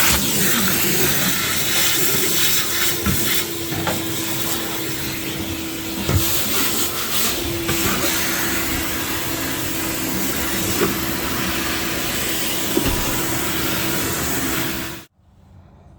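Shop-Vac wet/dry vacuum running with a steady rushing hiss and a held motor tone, the nozzle knocking against surfaces a few times. It cuts off suddenly near the end.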